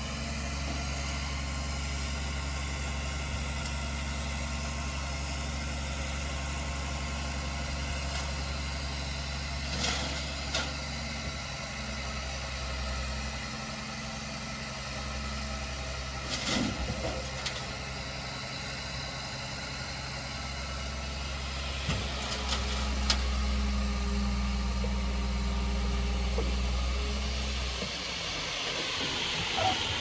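Heavy diesel engine of earthmoving machinery running steadily, its note growing stronger about two-thirds of the way through and dropping away near the end, with a few sharp metal clanks.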